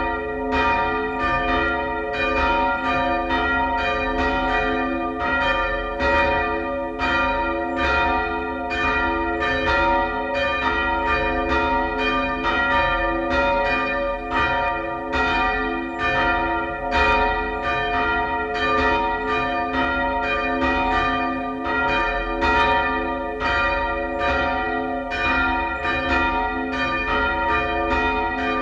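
Church bells swung by hand with ropes, ringing continuously with several strikes a second overlapping into a steady peal of lasting tones.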